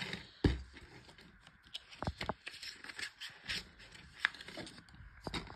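Handling noise from fingers rubbing and tapping on the recording phone: irregular knocks, taps and scrapes, the loudest knock about half a second in.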